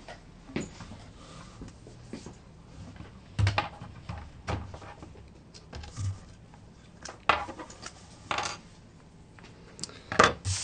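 Irregular knocks, clicks and light scraping from hands handling Raspberry Pi circuit boards and their small cardboard boxes on a tabletop. The loudest knocks come about a third of the way in and near the end.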